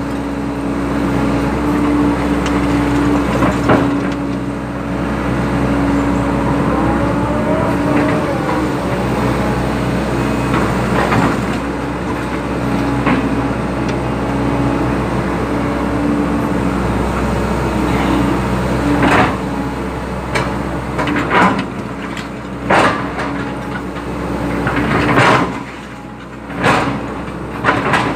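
Excavator's diesel engine running steadily under load, with a series of sharp metallic clanks and knocks in the second half as the machine works the ground.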